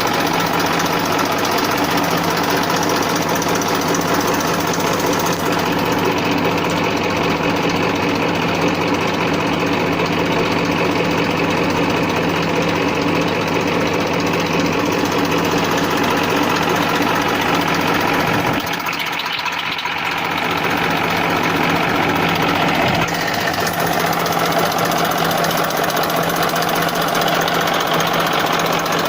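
1994 Massey Ferguson 1035 DI tractor's three-cylinder diesel engine idling with a steady hum. The sound briefly drops in level and dulls about two-thirds of the way through, then returns.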